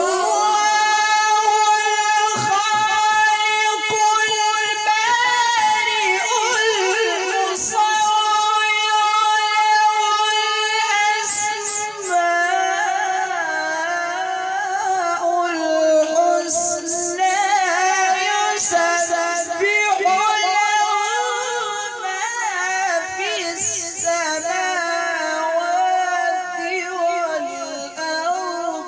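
A male qari's melodic Quran recitation (tilawat) into a microphone, drawn out in long held notes with wavering ornaments. The pitch steps lower about twelve seconds in.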